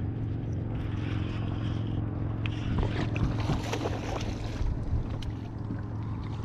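Steady low hum of a boat motor running, with water splashing and lapping that grows louder for a couple of seconds in the middle.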